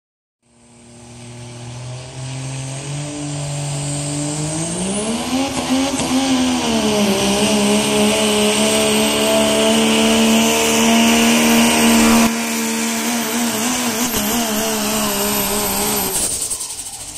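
Turbo-diesel pickup truck engine at full throttle pulling a weight-transfer sled. It revs up over the first few seconds, holds at high revs with a high turbo whistle, and drops off suddenly near the end as the pull ends.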